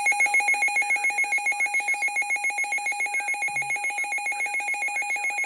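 A NOAA weather radio's built-in alert alarm sounding for a severe thunderstorm warning. It is a loud, shrill electronic tone that pulses quickly and evenly at about seven beats a second.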